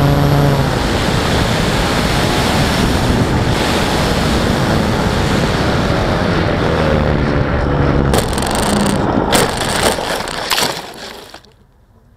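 Air rushing over the onboard camera of a Parkzone Sport Cub electric RC plane in flight, with the propeller's hum fading out about a second in. About two-thirds through come a string of sharp knocks and scrapes as the plane hits the ground, and then the sound drops away suddenly.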